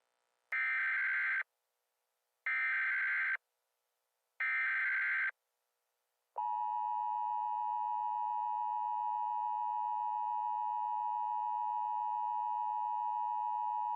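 Emergency Alert System data header: three short electronic buzzing bursts of warbling tones, about two seconds apart, followed about six seconds in by the steady two-tone EAS attention signal.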